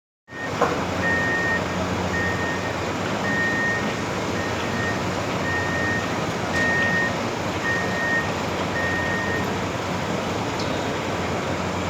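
Heavy machine's engine running steadily while its warning alarm beeps about once a second, eight high beeps, which stop about three-quarters of the way through.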